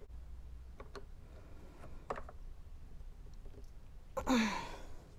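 A few faint clicks from a screwdriver working the long screws that hold the leaf blower's spacer and carburetor, then a short breathy sigh with falling pitch about four seconds in.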